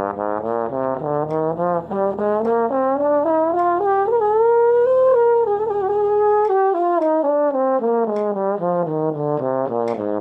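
Bass trombone playing a range exercise in five-note groupings: a run of short notes that climbs steadily in pitch for about five seconds, peaks, then steps back down, ending on a held low note.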